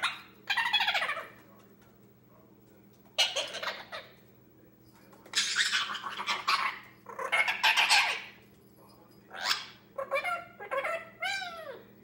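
A young male Indian ringneck parakeet making a string of harsh, raspy vocal bursts while playing, then a run of quick warbling chatter with sliding pitch near the end: the babble of a bird just starting to talk.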